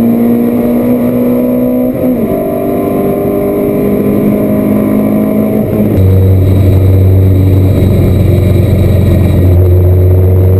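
Race car engine heard from inside the cockpit, running hard at a steady pitch. The pitch dips briefly about two seconds in, and from about six seconds a heavy low drone takes over.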